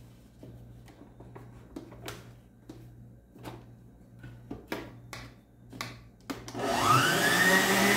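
Clicks and knocks as the whisk is fitted and the head of an Arno stand mixer is lowered into place. About six and a half seconds in, the mixer's motor starts with a rising whine that settles into a steady run at its lowest speed, beating margarine and sugar.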